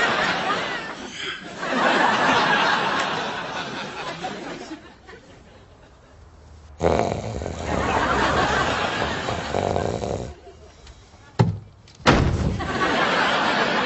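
Studio audience laughing in several waves, dying down briefly in the middle, with one sharp knock near the end before the laughter swells again.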